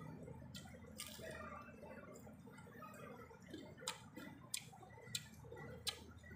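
Close-up eating sounds of a person chewing rice by hand: soft wet chewing and lip smacks, with several sharp mouth clicks spaced through it.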